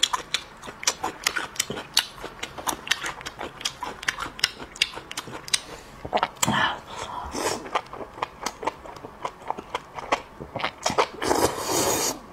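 Close-up crunching and chewing of pickled green Laba garlic cloves: a quick run of crisp crunches. Near the end comes a louder, noisier stretch as he slurps a skewer of sauce-coated enoki mushrooms.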